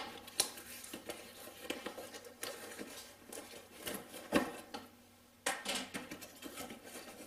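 Packaging being opened and a metal magnetic parts tray handled: scattered rustling with small clicks and knocks, one sharp click about four and a half seconds in and a louder rustle a second later.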